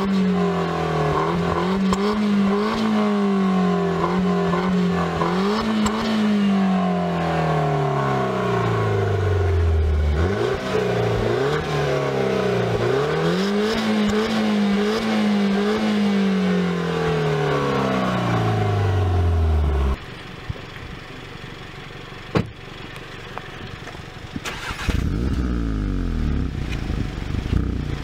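Peugeot 208 GTi's turbocharged four-cylinder being revved while parked, its pitch climbing, holding high and dropping back several times. About two-thirds through the sound drops suddenly to a lower, quieter engine sound, and near the end an Audi S1's turbocharged four-cylinder starts revving.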